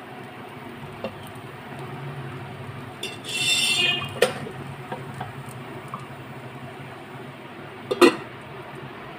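Steel spoon scraping the inside of a metal cooker pot about three seconds in, with a few small clinks, then a sharp metal clank near the end as the lid is set on the pot. A steady low hum runs underneath.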